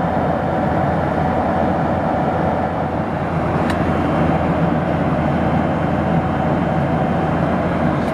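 Steady cabin noise inside a Boeing 737-800: an even rushing hum of engines and airflow with a faint constant tone in it.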